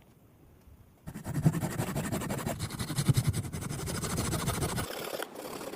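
Wet clay mud being packed by hand, a dense run of small crackles and clicks that starts about a second in and eases off near the end.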